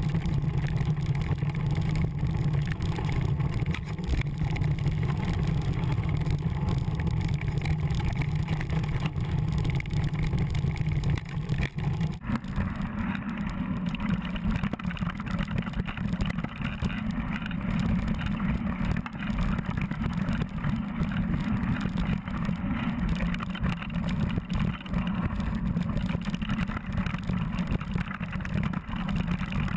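Steady rumble and rattle of a mountain bike rolling fast over rocky, gravelly trail, picked up by a camera mounted on the bike. The sound changes abruptly about twelve seconds in.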